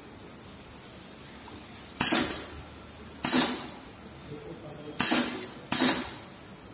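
Pneumatic piston filling machine cycling as it doses small bottles: compressed air lets out four short, sharp hisses, the first about two seconds in and the last two under a second apart.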